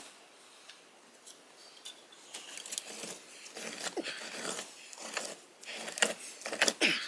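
Hand auger post hole digger being turned in sandy, gravelly soil. Irregular scraping and grating of the blades on grit and stones starts about two seconds in, with a few short squeaks. The loudest scrapes come near the end.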